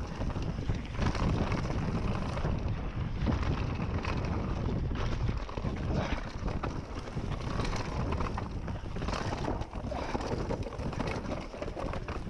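YT Capra full-suspension mountain bike descending a rough dirt trail at speed: a steady rumble of tyres over dirt and roots with wind buffeting the camera microphone, and frequent rattles and knocks from the bike over bumps.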